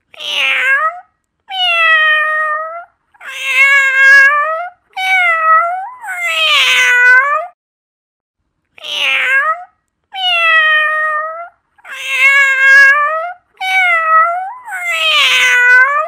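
Domestic cat meowing repeatedly: about ten drawn-out meows, each falling in pitch, in two runs of five with a short break in the middle.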